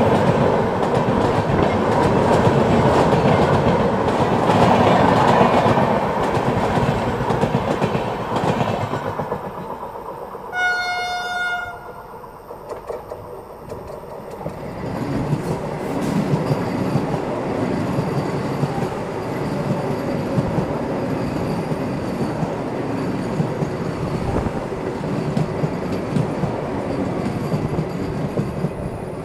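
Loud rush and rumble of a passenger train running past on the neighbouring track, heard from an open coach doorway. About ten seconds in, a train horn gives one blast of about a second, and after that the wheels clatter steadily over the rail joints while two trains run side by side.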